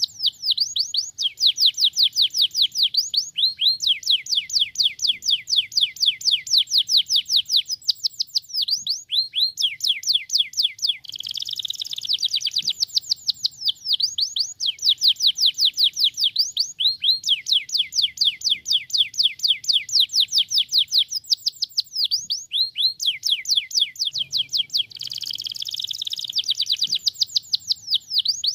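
Domestic canary singing: long trills of fast downward-sweeping whistled notes, about ten a second, each tour lasting several seconds. Short pauses and a few denser, fuller phrases break up the tours.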